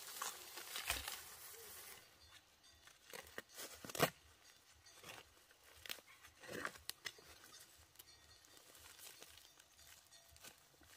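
Intermittent rustling and crinkling with a few sharp snaps, the loudest about four seconds in: hands handling crops or leaves.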